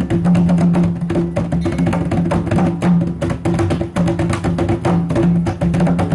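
Djembe drumming, fast hand strokes in a dense, unbroken rhythm.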